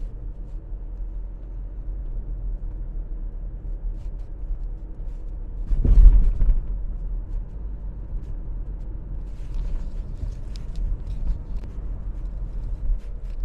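Road noise inside a moving car: a steady low rumble of tyres and engine, with one louder thump about six seconds in and a few light clicks near the end.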